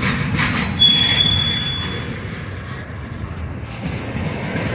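Double-stack intermodal well cars of a freight train rolling past with a steady low rumble of wheels on rail. About a second in, a sharp, high-pitched wheel squeal rings out for about a second, then fades.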